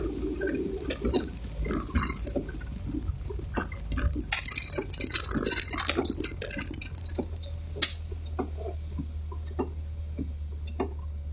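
Raindrops tapping irregularly on the car's roof and windshield, heard from inside the cabin over a steady low rumble of the moving vehicle.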